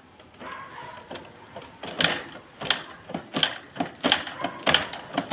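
Repeated sharp mechanical clacks from a motorcycle's rear wheel and drive as it is turned over, about three clacks every two seconds, loud from about two seconds in.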